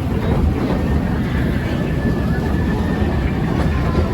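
Steady rumble and clatter of a narrow-gauge steam train's passenger cars rolling along the track, heard from aboard the train.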